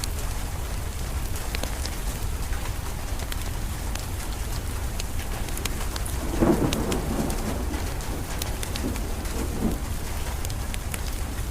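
Steady rain with a low rumble under it, a wood fire crackling with scattered sharp pops, and a louder roll of thunder about six and a half seconds in, with a smaller one near the end.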